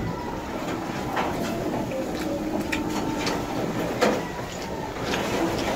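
A person eating: chewing, with scattered light clicks and knocks over a steady background noise, the sharpest knock about four seconds in.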